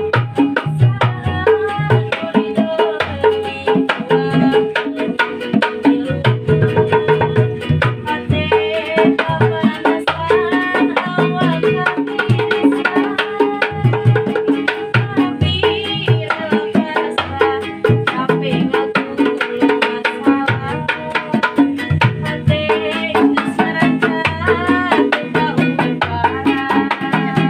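Street buskers playing instrumental music: a melody line over a steady, quick drum beat.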